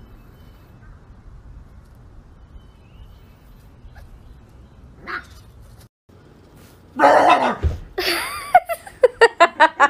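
Dogs vocalising: a brief yap about five seconds in over low background, then after a short break loud dog sounds from about seven seconds, ending in a rapid string of short pitched sounds, about four a second.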